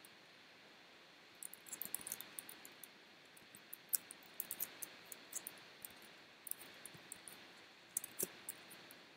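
Computer keyboard keys clicking in short, irregular runs of keystrokes, faint and light, starting about a second and a half in, as code is typed and edited.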